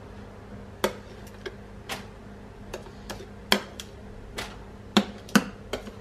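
About a dozen irregular sharp taps and knocks of a utensil and a hard plastic container as whipped egg-white fluff is scooped out onto a lined baking tray, the loudest pair about five seconds in. A faint steady hum runs underneath.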